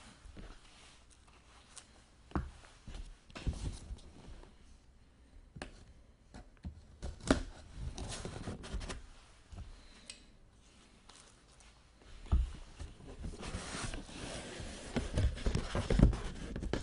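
Hands opening and handling the contents of a hockey memorabilia box: packaging rustling and sliding, with scattered taps and clicks and a longer stretch of rustling near the end.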